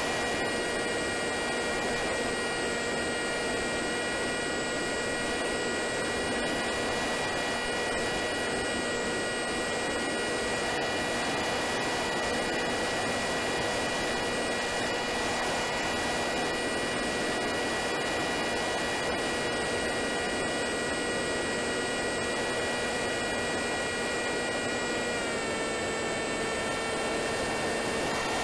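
Wing Wing Z-84 flying wing's electric pusher motor and propeller whining at a steady pitch in flight, with wind rushing over the onboard microphone. About 25 seconds in, the whine drops slightly in pitch as the throttle is eased.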